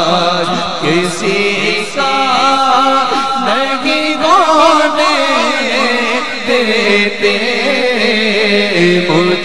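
Male voice chanting an Urdu naat into a microphone, singing long held lines with wavering, ornamented turns in pitch.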